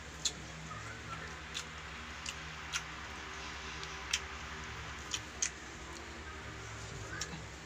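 Eating sounds at a meal: about eight scattered sharp clicks and taps at irregular moments, as of utensils, plates and chewing, over a steady low hum.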